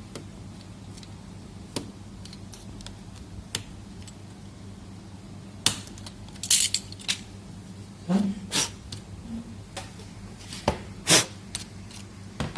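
Scattered sharp clicks and taps of small plastic and metal laptop parts and tools being handled during disassembly. The louder clicks come in a cluster about halfway through and again near the end, over a low steady hum.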